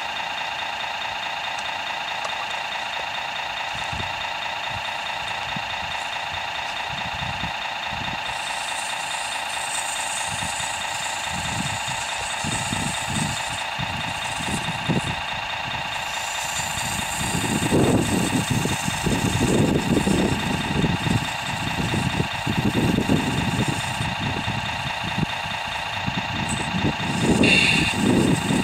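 Simulated diesel engine idling from an RC construction model's sound unit: a steady buzzing drone with a light rapid beat. In the second half, irregular low rumbles come and go over it.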